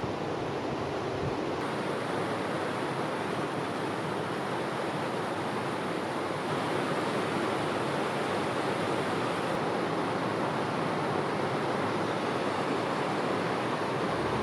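Steady, even rushing of wind and surf in the open air, with no distinct events; it grows a little louder about six seconds in.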